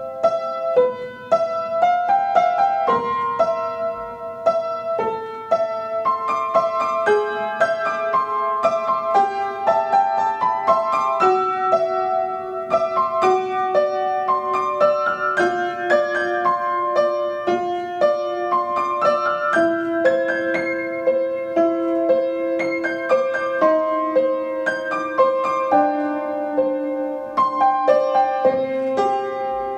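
Upright piano played solo: a steady, flowing run of notes several a second, with a middle line stepping gradually down in pitch.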